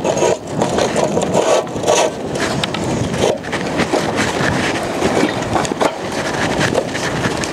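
Irregular knocks and scrapes from an aluminium longline-setting frame being handled and tipped over on sand, over a steady rushing noise.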